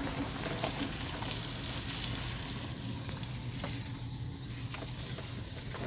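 Steady low hum of a moving car: engine and road noise, with a few faint clicks.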